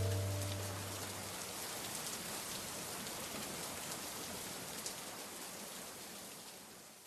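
Steady falling rain with scattered drop ticks, fading slowly and stopping at the end. The last ringing ukulele and bass notes die away under it in the first second.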